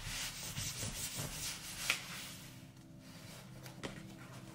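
Hands rubbing and smoothing an adhesive Chalk Couture silkscreen transfer down onto a tray, a dry scraping rub for about three seconds with one sharp tick about two seconds in, then quieter.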